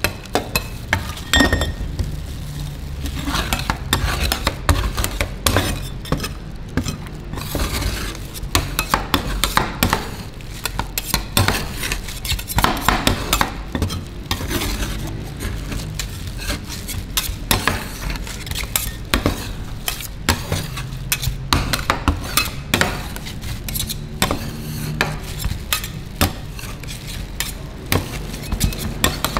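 Two metal spatulas chopping and scraping on a metal rolled-ice-cream cold plate, a fast, irregular run of clacks and scrapes as chocolate chunks are mashed into the freezing cream base.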